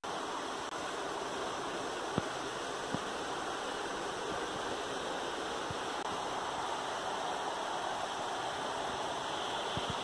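A steady, even hiss or rush without any tone, with a few faint clicks about two and three seconds in. It cuts off abruptly just after the end.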